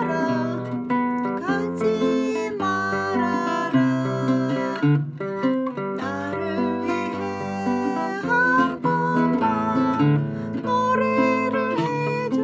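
Nylon-string classical guitar played with the fingers: a continuous run of plucked chords and bass notes accompanying a song.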